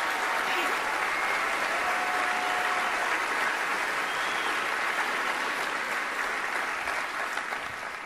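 A large theatre audience applauding steadily, the clapping thinning out and fading near the end.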